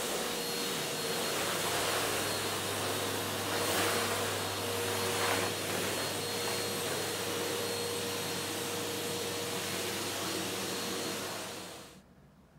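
Numatic Henry cylinder vacuum cleaner running steadily while vacuuming a bare concrete floor: a rush of air over a steady motor hum, with a couple of brief surges. It stops near the end.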